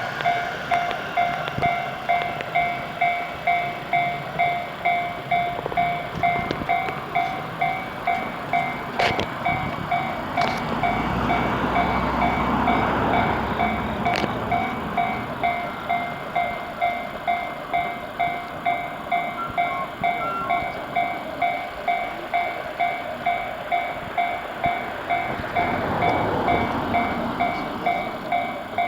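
Japanese level-crossing warning bell ringing steadily, about two strokes a second. Under it the rumble of a passing train swells around the middle and again near the end, with a few sharp clicks.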